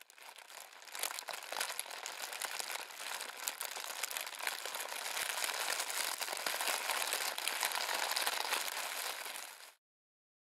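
Crackling fire sound effect: a dense run of crackles and hiss that fades in over the first second and cuts off suddenly near the end.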